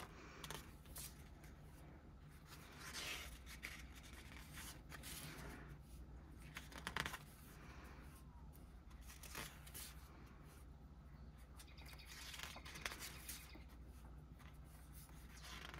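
Faint rustles of a hardcover photobook's glossy pages being turned and smoothed by hand, several times, with a soft tap near the middle, over a low steady hum.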